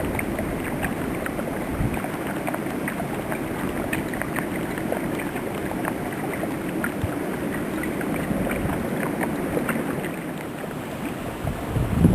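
Storm wind blowing steadily in heavy snow, a rushing hiss with scattered faint ticks. Low wind buffeting on the microphone sets in near the end.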